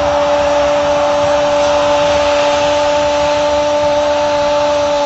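A steady, unchanging pitched hum over a wash of stadium crowd noise in a football broadcast.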